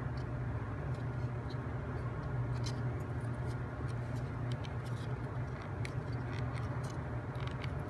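Small plywood model parts clicking and scraping as they are handled and fitted, in irregular light taps over a steady low hum.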